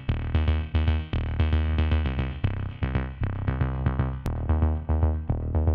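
Background electronic music with a steady drum-machine beat, synthesizer and a heavy bass.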